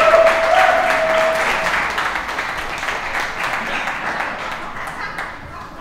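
Crowd applauding, the clapping steadily dying away, with a drawn-out call over it in the first second and a half.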